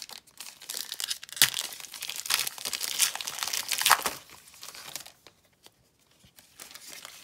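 Foil wrapper of a 2019 Diamond Kings baseball card pack being torn open and crinkled, with sharp snaps of the tearing foil about a second and a half in and again about four seconds in. The crinkling stops after about five seconds, leaving only faint shuffling of the cards.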